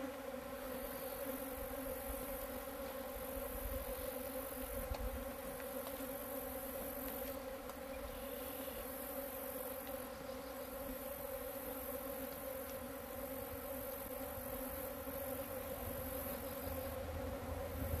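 Steady drone of many alfalfa leafcutter bees buzzing over the flowering crop, holding one pitch with a high hiss that comes and goes above it.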